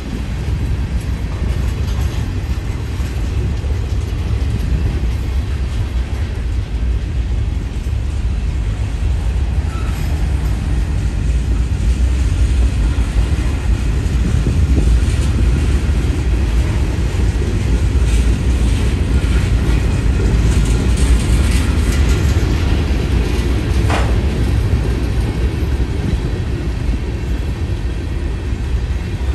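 Freight train's covered hopper cars rolling past at close range: a steady rumble of steel wheels on the rails with occasional clanks and knocks, and one brief squeak about three-quarters of the way through.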